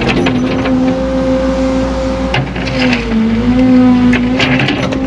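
Excavator's diesel engine running steadily under a digging load, its pitch sagging briefly about three seconds in. Several clanks and scrapes from the bucket working in rocky ground.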